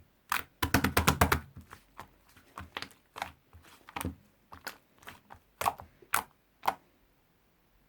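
Sharp clicks and crackles of white clay slime being pressed and worked by hand. A quick run of about ten clicks comes about a second in, followed by scattered single clicks that stop a little over a second before the end.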